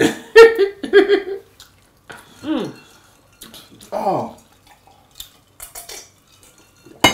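Cutlery and plates clinking during a meal, with short voice sounds in the first second or so and two brief falling hums a little later.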